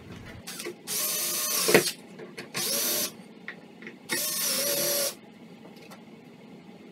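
Cordless drill run in three short bursts into an OSB board, each a second or less with short pauses between, and a sharp click near the end of the first.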